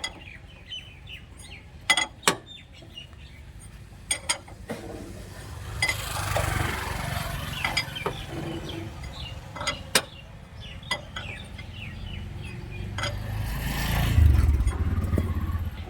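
Sharp metal clanks and knocks of tools on tractor parts, coming singly or in pairs every few seconds, with small birds chirping throughout. A low engine rumble swells twice and is loudest near the end.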